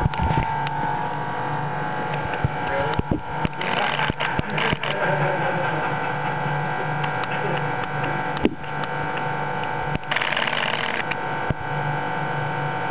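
Steady electrical and mechanical hum of the equipment running a pulsed laser deposition vacuum system, holding several steady tones, with scattered clicks and knocks and a brief hiss about ten seconds in.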